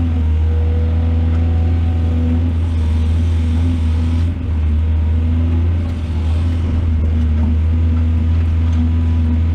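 Heavy diesel engine of an excavator running steadily, with a steady whine above the low rumble and two brief dips in loudness partway through.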